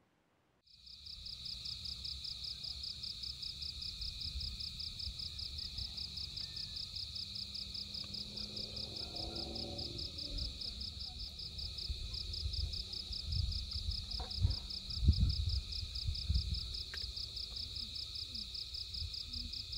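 Evening insect chorus: a steady high-pitched chirring that pulses in a fast, even rhythm. Under it is a low rumble, with a few louder low thumps about two-thirds of the way in.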